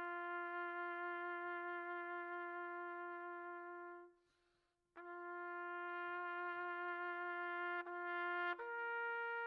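Slow, solemn solo trumpet music with long held notes. One note fades out about four seconds in and there is a moment of silence. The tune then resumes and rises to a higher note near the end.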